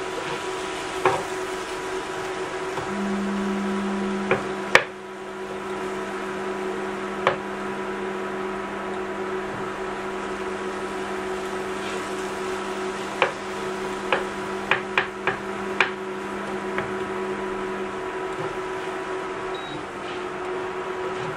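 A wooden spoon stirs food in a non-stick frying pan on an induction hob, knocking against the pan now and then, with a quick cluster of knocks about two-thirds of the way through. A steady low electric hum starts a few seconds in and stops about three-quarters through, over a constant background hum. A short beep sounds near the end as the hob's power setting is changed from P2 to P3.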